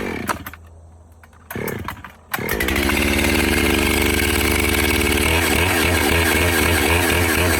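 Cold start of an Echo CS-7310P two-stroke chainsaw: a starter-rope pull right at the start and another about one and a half seconds in, then the engine fires and runs at a steady fast idle. About five seconds in it drops to a lower, wavering idle.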